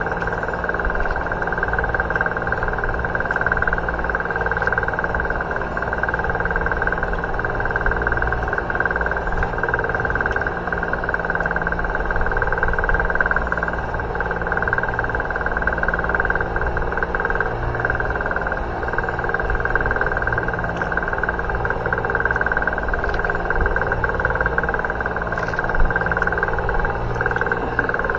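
A boat's engine running steadily at idle, a constant drone with a few faint clicks over it.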